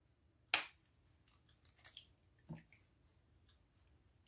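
An egg cracked on the rim of a glass bowl: one sharp crack about half a second in, then a quick run of small shell crackles as it is pulled open, and a duller knock soon after.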